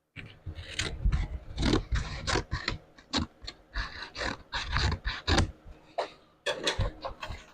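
Welding on a 1952 Willys Aero's sheet-steel body while repair panels are welded in, coming as a string of short, irregular bursts with brief pauses between them.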